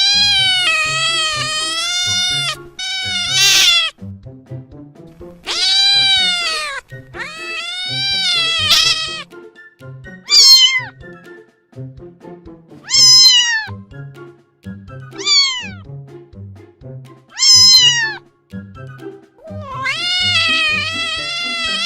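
Domestic cat meowing over and over, about nine meows: some long and drawn out with a wavering pitch, others short and falling in pitch. Background music with a steady low beat plays under them.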